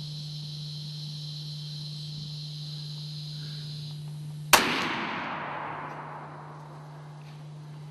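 Insects chirring steadily, falling quiet just before a single loud rifle shot from a Savage Model 99 lever-action about four and a half seconds in, its report rolling away over about a second and a half. A steady low hum sits under it all.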